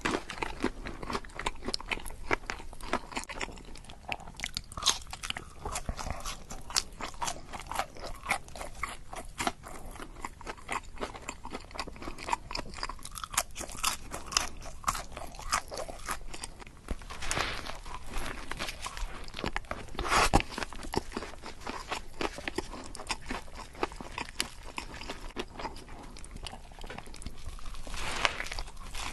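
Close-miked crunching and chewing of crispy fried chicken: a breaded chicken tender and a fried chicken burger being bitten and chewed, a rapid crackle of batter with a loud crunch about 20 seconds in.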